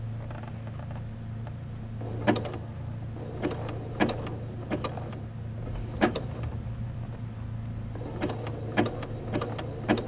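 Electric sewing machine stitching slowly, zigzag-stitching a conductive thread onto a ribbon: a steady motor hum with irregular sharp clicks of the needle and feed.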